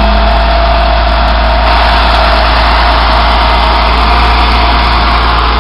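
Flatbed car hauler truck's engine idling steadily.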